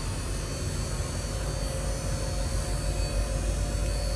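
Steady hum and low rumble inside a wooden streetcar, with a faint steady whine over it.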